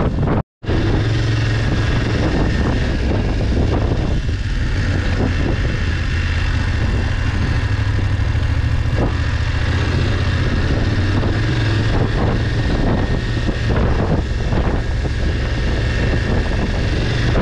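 Adventure motorcycle engine running steadily under way, with wind noise on the microphone. The sound cuts out completely for a moment about half a second in.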